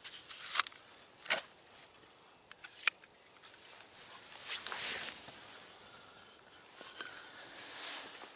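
Handling noises of a knife and a peeled willow bark tube on a rock: a few sharp clicks and knocks in the first three seconds, then rustling scrapes around the middle and near the end.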